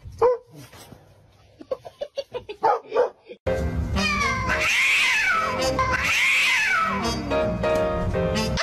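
A few scattered short sounds. Then, about three and a half seconds in, background music starts suddenly, with a cat's long drawn-out meow rising and falling twice over it.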